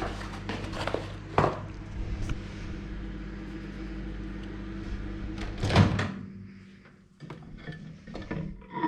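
Microwave oven running with a steady hum, a knock about a second and a half in, then a loud clunk about six seconds in after which the hum winds down, followed by light kitchen clatter.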